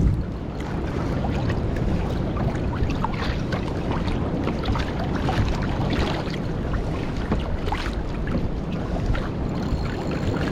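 Wind buffeting the microphone over choppy sea water, with many small splashes and slaps of water scattered through it.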